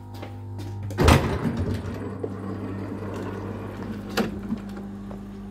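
Class 323 electric train's sliding passenger door opening with a loud thump about a second in, followed by open-air platform noise and a low steady hum, with a few sharp clicks.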